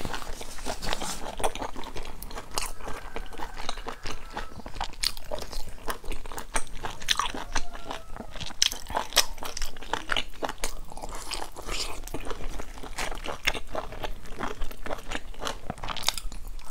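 Close-miked eating: a person biting into and chewing a large pan-fried stuffed bun, with a dense run of sharp, crackly crunches from the browned wrapper and filling.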